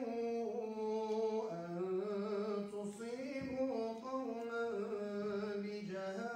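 A man reciting the Quran in melodic tajweed chant, drawing out one long melismatic phrase on a held vowel that steps up and down in pitch without a break.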